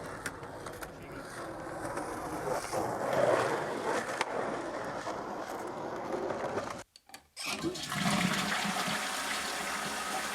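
Steady rushing noise like running or flushing water, which breaks off briefly about seven seconds in before a different rushing noise takes over.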